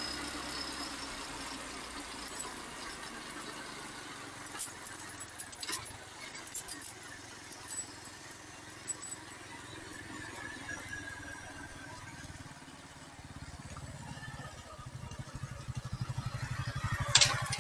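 Motorcycle running slowly, with a faint squeal that slides down in pitch about ten seconds in as it slows. Near the end the engine idles with a fast low throb, and there is a sharp knock.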